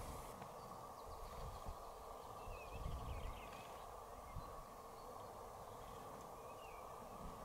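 Quiet open-air ambience: a steady hiss with a few short, faint bird chirps scattered through it.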